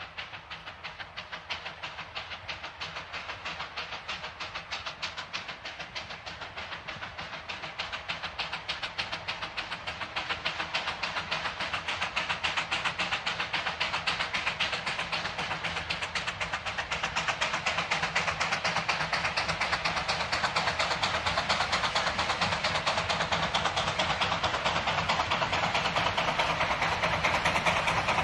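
WW&F No. 9, a two-foot-gauge 0-4-4T Forney steam locomotive, working a train with rapid, even exhaust chuffs, growing steadily louder as it approaches.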